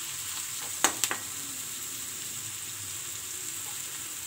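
Chopped onions and ginger-garlic paste sizzling steadily in hot oil in a nonstick frying pan as they are stirred with a steel spatula. Two sharp clicks about a second in, the spatula knocking against the pan.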